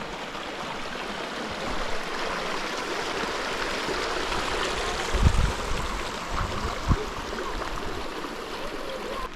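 A creek running with a steady rush of water, and two low thumps about five and seven seconds in.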